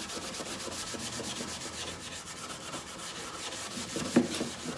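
A Scotch pad loaded with Howard's polish rubbed in quick repeated strokes over a lacquered wooden clock case, dulling the fresh lacquer to a softer sheen. A short knock about four seconds in.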